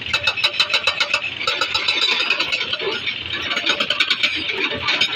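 Hydraulic rock breaker (Atlas) on a Komatsu 210 excavator hammering rock in a steady train of rapid, evenly spaced blows, with the excavator's engine running underneath. The breaker is being test-run with its body freshly refitted.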